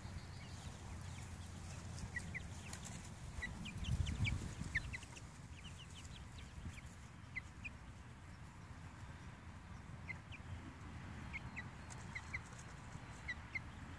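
Young chickens, six to seven weeks old, peeping: scattered short, high peeps, several close together at times. A brief low rumble about four seconds in.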